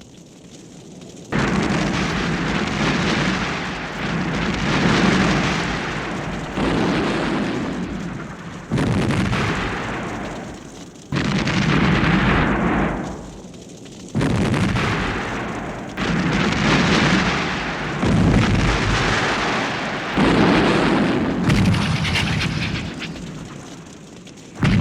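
A series of about ten explosions from a vintage sound-effects library, one every two or three seconds, each starting suddenly and rumbling away as the next one hits.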